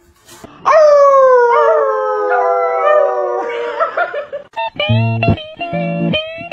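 A dog howling: one long howl, about four seconds, slowly falling in pitch. Guitar music with a bass line then starts.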